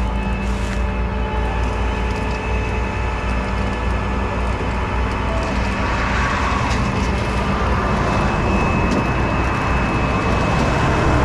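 Heavy tow truck's engine running steadily with a low hum and a faint steady whine, against roadway traffic noise that swells about six seconds in as a vehicle passes.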